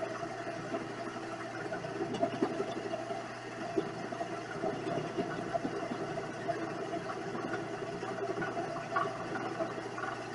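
Vevor 7x14 mini lathe running with a steady motor hum, the cutting tool scraping and chattering irregularly against scrap steel stock.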